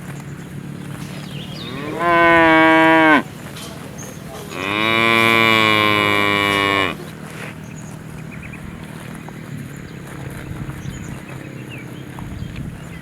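A cow mooing twice: a short moo, then a longer one lasting about two and a half seconds.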